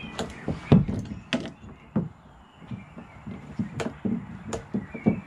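Irregular clicks and knocks of a Railblaza transducer mount arm and its plastic fittings being handled and fitted into a side mount on a plastic kayak hull.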